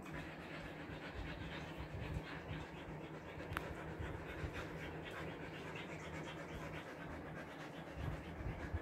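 Siberian husky panting quickly and steadily, cooling itself in the heat. A single sharp click comes about three and a half seconds in.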